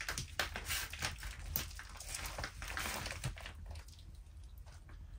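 Soft, irregular rustling and small clicks of hands handling raw bacon and mini sausages as the bacon is wrapped around them, busier in the first three seconds and thinning out after.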